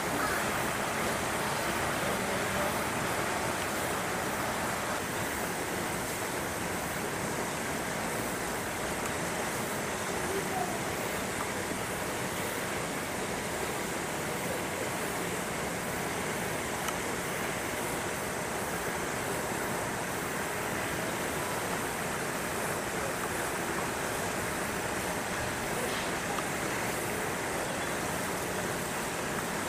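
Steady outdoor background noise, an even rushing hiss at a constant level, with faint distant voices now and then.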